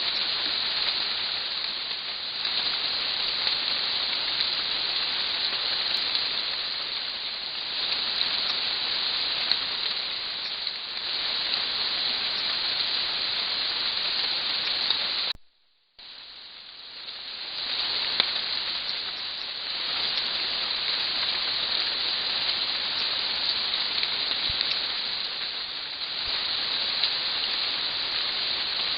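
Steady rain hiss with occasional small drop ticks. The sound cuts out for a moment about halfway through, then picks up again.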